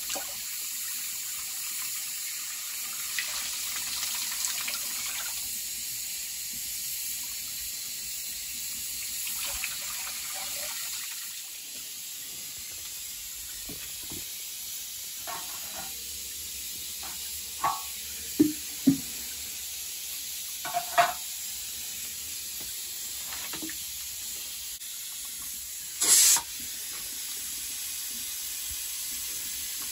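Water splashing and sloshing as a steel pot is rinsed by hand in a sink, then a few clinks of metal pots and utensils. A short, loud hiss near the end.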